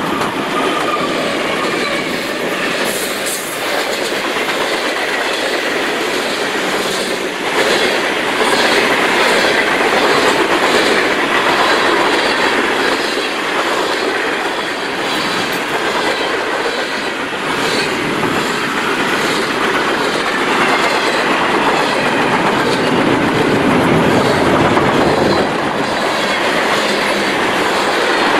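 Freight train passing close by. Norfolk Southern diesel locomotives go by first, then a long string of tank cars and boxcars rolls past with a steady clickety-clack of wheels over the rail joints, louder from about seven seconds in.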